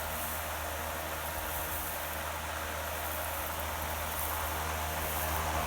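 Electric fan running steadily to winnow wheat: a low motor hum under a broad rush of air.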